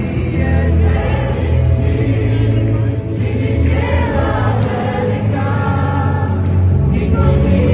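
A crowd singing a worship song together to a live band, with a strong steady bass line, and clapping along.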